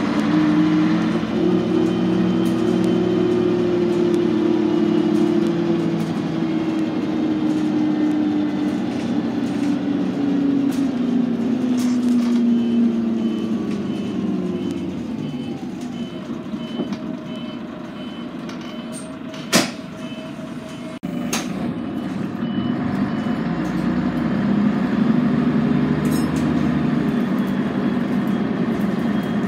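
Scania N113CRB city bus's 11-litre straight-six diesel heard from inside the saloon: the engine runs under load, then its pitch falls as the bus slows to a quieter idle, and picks up again as it pulls away near the end. A row of short high beeps sounds for several seconds in the middle, with one sharp knock about two-thirds of the way through.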